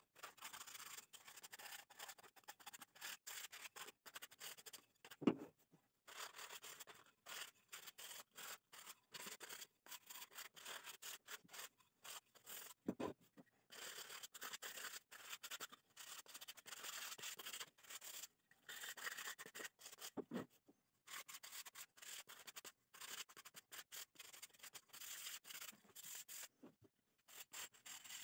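Faint rubbing of a white pad over a small pallet-wood phone stand, in quick back-and-forth strokes with short pauses. A few soft knocks of the wood being handled, the sharpest about five seconds in.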